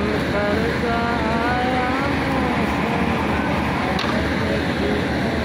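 Steady, loud, rumbling street-side din, with a wavering voice calling or singing in the first two seconds or so and a short tick about four seconds in.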